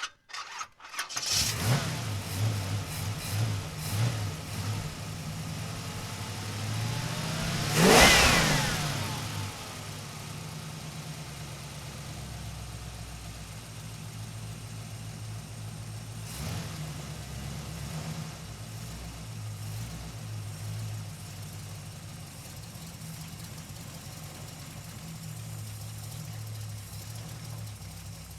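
Muscle car engine catching about a second in and running at an uneven idle, then revved hard once about eight seconds in, its pitch rising and falling back. A shorter blip of the throttle comes around the middle, and then it settles into a steady idle.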